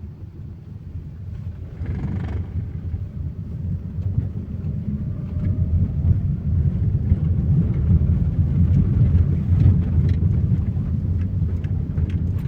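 Train rumbling, growing steadily louder as it draws closer, with a few faint clicks over the deep rumble.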